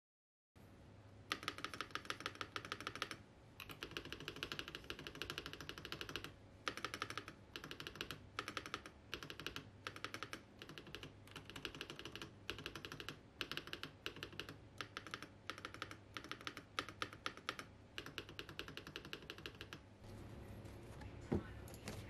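Typing on a Royal Kludge RK S98 prebuilt mechanical keyboard: fast runs of key clacks in bursts of a few seconds with short pauses between them. The typing stops about two seconds before the end, and a couple of knocks follow.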